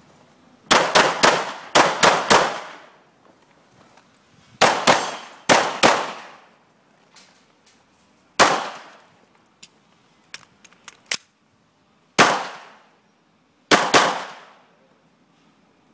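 Pistol shots fired in quick strings of two and three, with pauses of a second or more between the groups, each shot ringing out with a short echo.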